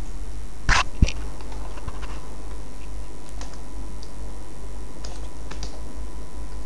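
A few scattered keystrokes on a computer keyboard, the loudest pair about a second in, over a steady low electrical hum.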